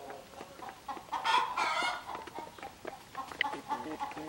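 Hens and a rooster clucking while they peck grain off concrete, their beaks tapping rapidly, with one louder drawn-out call about a second in.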